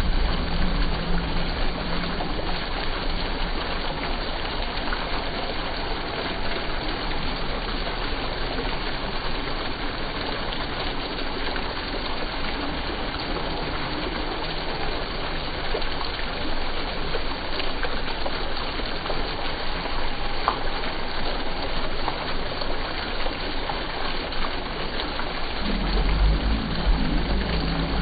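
Steady splashing of a fountain: bell-shaped jets pouring thin sheets of water down onto the surface of a shallow tiled pool.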